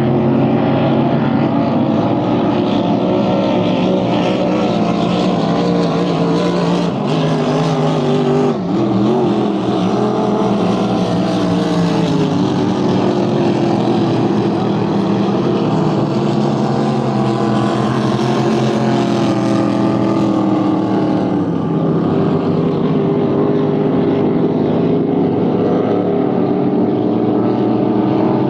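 Several racing powerboat engines running hard at once, their overlapping pitches rising and falling as the boats run down the course and through the turns.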